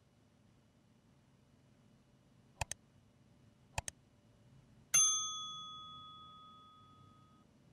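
Subscribe-button animation sound effects: two quick mouse double-clicks about a second apart, then a single bright notification-bell ding that rings out and fades over about two and a half seconds.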